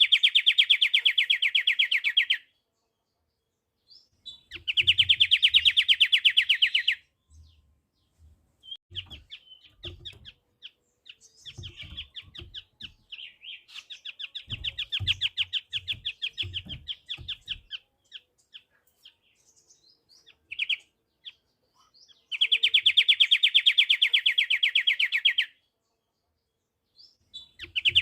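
Pied triller (kapasan kemiri) singing: loud, rapid trills of evenly repeated notes, each lasting two to three seconds, given four times with pauses between. A run of softer, looser trilling in the middle comes with scattered low knocks.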